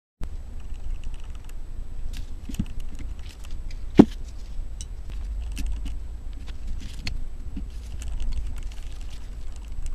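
Small clicks and taps of gloved hands and tools handling a metal engine main bearing cap bridge, with one sharp clack about four seconds in, over a low steady rumble.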